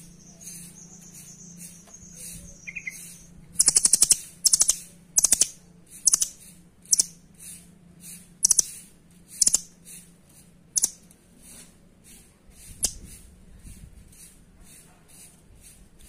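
A caged nuthatch (rambatan) giving sharp, very high calls in short bursts, some as rapid rattling trills, about one a second from a few seconds in, with a last call near 13 s.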